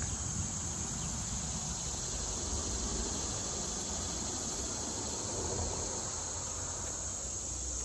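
Steady, high-pitched chorus of insects such as crickets, unbroken throughout, with a low rumble underneath.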